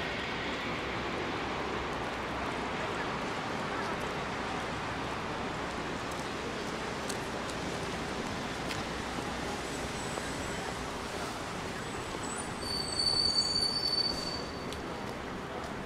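Steady hiss of rain and wet city street traffic, with a brief high-pitched squeal, the loudest sound, near the end.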